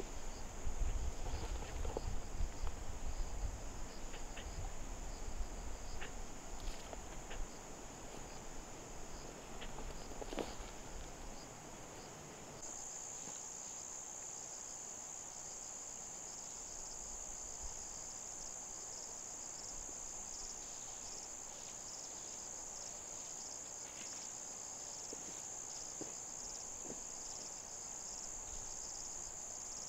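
A steady, high-pitched insect chorus that grows louder about twelve seconds in. A low rumble and a few scattered knocks run under it for the first twelve seconds or so.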